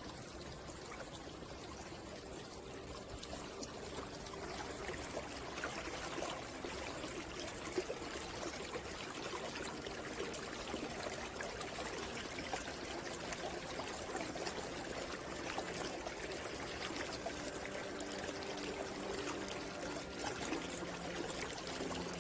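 Mountain stream flowing over rocks: a steady rush of running water with trickling and splashing, growing gradually louder over the first few seconds.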